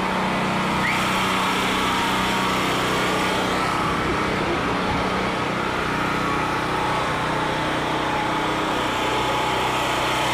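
Portable generator's small engine running steadily at a constant speed.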